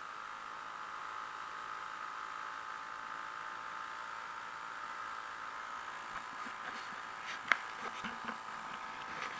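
A 50-year-old Johnson 2 hp Seahorse two-stroke outboard running steadily, pushing the canoe along, heard as a high, even buzz. A few clicks and one sharp knock come near the end.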